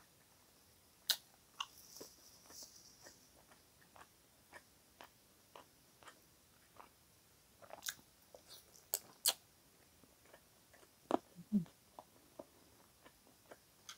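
Close-miked mouth sounds of eating rotisserie chicken: soft chewing and lip smacks in short, scattered clicks, a few of them sharper and louder. Fingers pick at the meat in a small bowl, and a brief low sound comes near the end.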